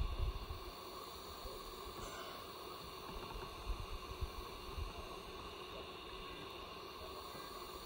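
Sculpto 3D printer running mid-print: a steady hum and whine from its motors and cooling fan, with a faint hiss. A few short low bumps come through, just at the start and again around the middle.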